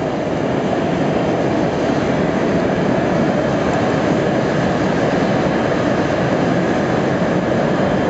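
A row of gas burners firing in a brick kiln: a loud, steady rushing noise that holds even throughout.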